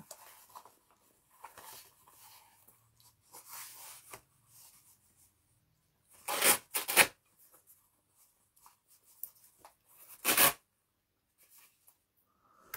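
Blood pressure cuff's hook-and-loop (Velcro) fastener being ripped open and pressed shut: two sharp rips close together about halfway through, a third a few seconds later, with soft rustling of the cuff fabric and tube between them.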